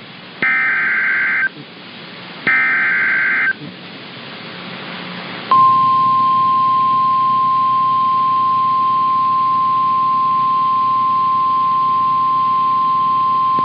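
Emergency Alert System SAME header: two warbling bursts of digital data tones, each about a second long, then a rising hiss of static and, about five seconds in, the single steady high tone of the National Weather Service 1050 Hz warning alert.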